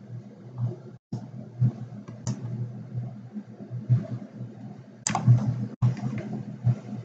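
Computer mouse clicking a few times, with sharp clicks about two seconds and five seconds in, over a steady low hum.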